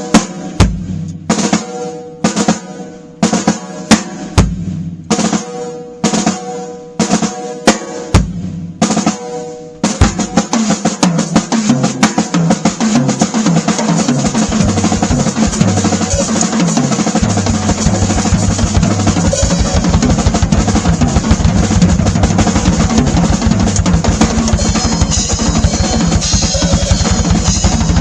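Drum kit played with a Beatello 14x8 basswood snare drum: single, spaced hits that ring on for about ten seconds, then continuous fast rolls and fills across the kit with rapid bass drum strokes underneath.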